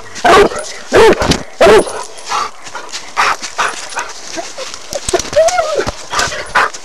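English bluetick coonhound barking treed: a run of loud, short chop barks, then quieter ones and one longer drawn-out bawl about five seconds in, the hound's signal that it has a raccoon up the tree.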